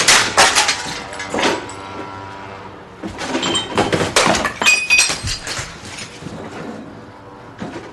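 A run of crashes and clattering knocks with something breaking, in two bursts: one at the start and another from about three seconds in until about five and a half seconds.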